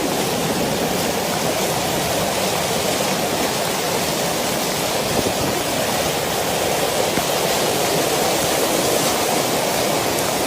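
Flash-flood water rushing past in a loud, steady torrent, with no breaks.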